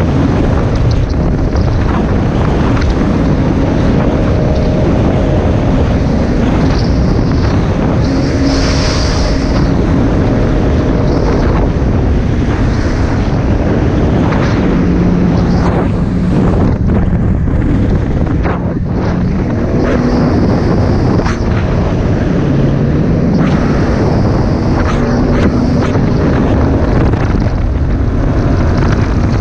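Wind buffeting the microphone over the running Yamaha GP1800R jet ski's engine and rushing water as the craft runs along at speed, the engine note shifting up and down a few times.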